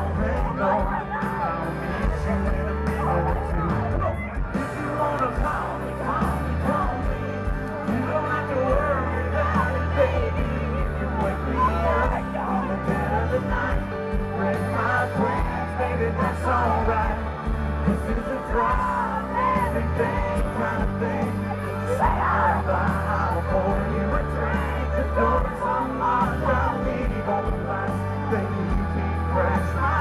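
Live country band playing loud through a concert sound system, with a singing voice over steady heavy bass and fans yelling and whooping along.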